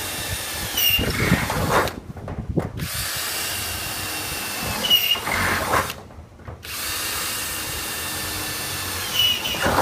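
Cordless drill boring holes through a metal pool wall panel, running in three steady spells with short pauses between, each spell with a brief high squeal from the bit in the metal.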